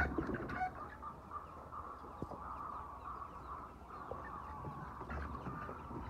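A large flock of white chickens clucking and calling together: a steady, dense chorus of many overlapping short calls.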